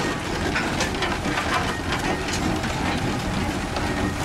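Old wooden wagons on iron-rimmed spoked wheels rolling along a dirt track behind a steam tractor: a steady rumble with irregular clacks and knocks from the wheels and timber.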